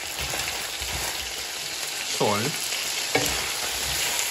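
Chicken pieces sizzling as they fry in their own fat, with no oil, in a nonstick wok, stirred and turned with a wooden spatula. There is a short knock about three seconds in.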